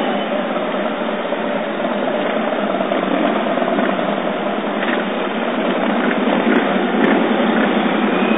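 Police motorcycles, big touring bikes, riding past one after another at low speed in a column, their engines running in a steady blended drone.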